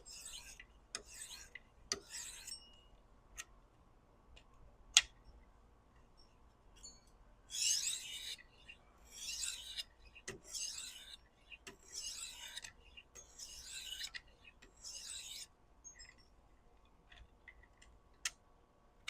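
Forward passes of a 1000-grit diamond stone along a chef's knife edge, a faint gritty scrape with each stroke: a few short strokes at first, then six longer ones in a row about every second and a half, with a couple of sharp clicks between. The passes knock the burr off and polish the edge.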